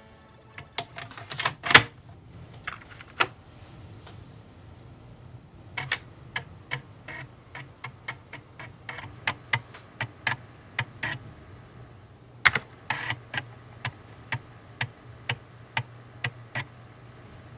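Amiga 600's internal floppy drive loading a disk: irregular clicks and short runs of clicks from the read head stepping, over the steady hum of the spinning drive motor.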